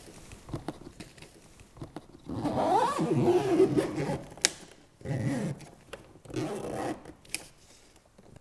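Zipper on the front lid of a soft-sided suitcase being pulled shut in several runs, the longest about two seconds in, with a couple of sharp clicks.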